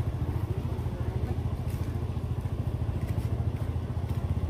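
A small engine running steadily, with a low, fast, even pulsing.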